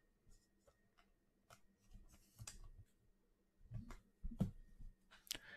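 Faint rustles and light clicks of football trading cards being handled.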